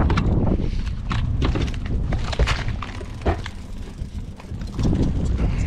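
Wind buffeting the microphone as a low rumble, with scattered knocks and clatter from handling a landing net and gear on a fishing boat.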